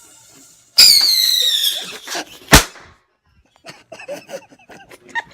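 A firework going off: a sudden loud, shrill whistle that falls slowly in pitch for about a second and fades, then a single sharp bang about two and a half seconds in.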